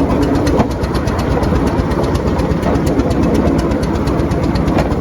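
Miniature railway train running fast, heard from aboard: a loud, steady engine rumble with frequent clicks from the wheels on the track.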